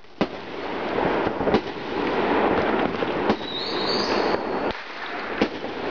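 Fireworks going off: a dense, continuous noise of many fireworks broken by several sharp bangs spaced a second or so apart, with a short high whistle near the middle.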